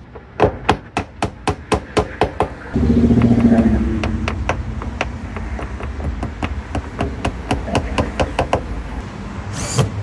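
Claw hammer tapping small nails into wooden door trim to fix a cable in place, quick light strikes about four a second. About three seconds in, a low steady rumble comes in under the taps.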